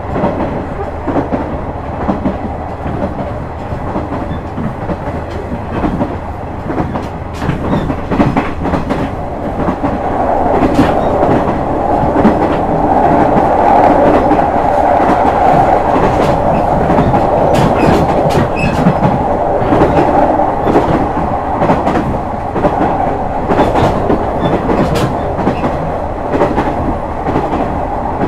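JR West KiHa 126 series diesel railcar running, a steady rumble of engine and wheels on rail with scattered rail-joint clicks, growing louder about ten seconds in.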